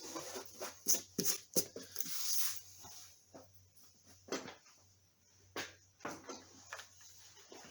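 Irregular light clicks and knocks of handling work, with a short hiss about two seconds in, over a faint steady low hum.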